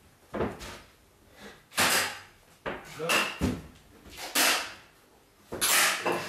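Kayak paddles swung hard at a hanging object, striking it: a string of sharp knocks and swishes, about one a second.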